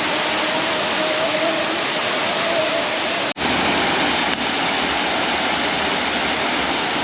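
Waterfall's water rushing in a steady, even noise, broken by a sudden momentary gap about three seconds in.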